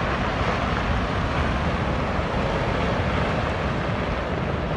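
Steady rushing of a flooding mountain river, swollen with muddy floodwater in a rocky gorge, with wind rumbling on the microphone.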